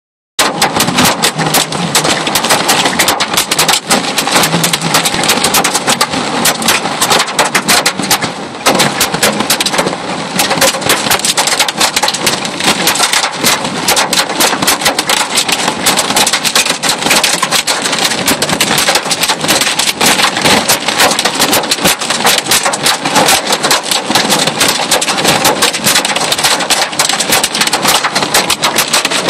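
Hail drumming on the roof and windshield of a moving vehicle, heard from inside the cabin: a dense, unbroken clatter of sharp hits, easing for a moment about a third of the way in.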